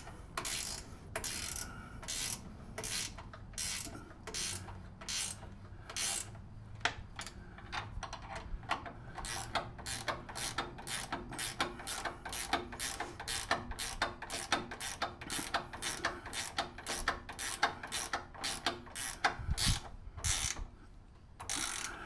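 Ratchet wrench clicking as a bolt on a snowblower's handle is tightened. The clicks come slowly at first, then quicken into a steady run of about three or four a second.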